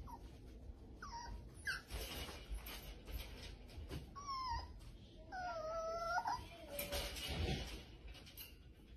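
A puppy whining in several short, high cries, the longest lasting about a second near the middle, with scattered clicks and knocks of the wire crate as it climbs the bars.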